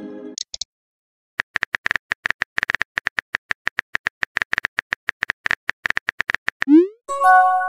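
Rapid, irregular phone-keyboard tapping clicks, as of a message being typed, followed near the end by a short rising swoosh as the message is sent and a brief chime.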